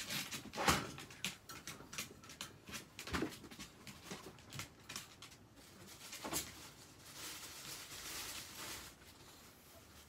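Scattered light clicks and knocks from handling, with feet in slippers shifting on a crinkly plastic tarp, then a softer longer rustle in the second half.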